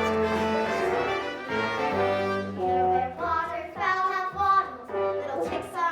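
Stage-musical accompaniment playing held chords, with brass-like tones. From about halfway through, children's voices begin singing along.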